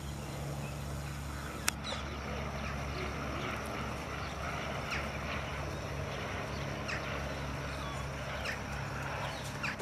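Steady low mechanical hum, with scattered short high squeaks and a sharp click a little under two seconds in.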